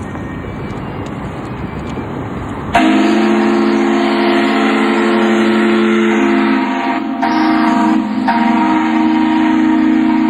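A ship's steam whistle sounds a loud chord of several steady notes, coming in suddenly about three seconds in over steady background noise and held to the end, with a brief dip about seven seconds in.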